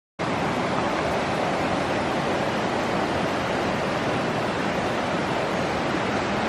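Creek water rushing steadily over rocks, an even hiss that cuts in abruptly right at the start.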